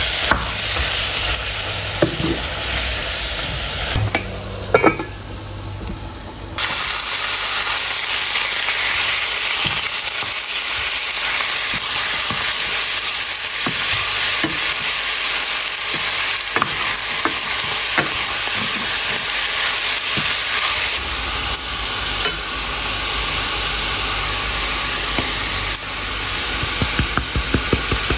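Turkey meat sizzling in a hot pan while being stirred, with occasional clicks of the utensil against the pan. The sizzle briefly drops about five seconds in, then comes back at full strength.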